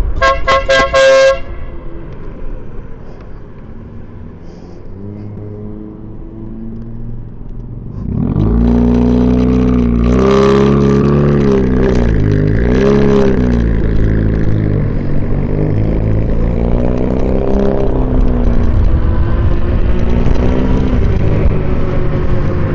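A short, loud blast of an electric air horn. Then low road and wind rumble, with a louder motor-vehicle engine from about eight seconds in whose pitch wavers up and down.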